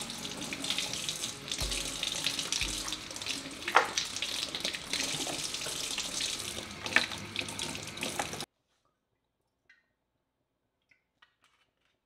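Water running from a pull-down kitchen faucet and splashing over hands into a stainless steel sink, with a couple of sharp knocks. The water sound cuts off suddenly after about eight seconds, leaving near silence with a few faint ticks.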